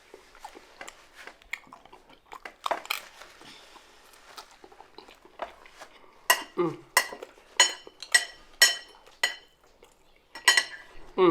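A fork clicking and scraping against a food container while eating, with faint chewing noises. About six sharp, ringing clicks come roughly half a second apart in the second half, and a few more come near the end.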